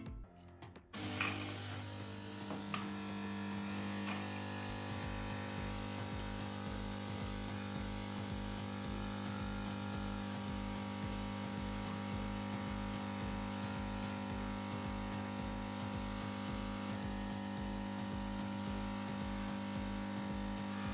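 Siemens EQ500 espresso machine's pump running steadily during its automatic rinse at switch-on: a steady electric hum with water flowing through. It starts about a second in.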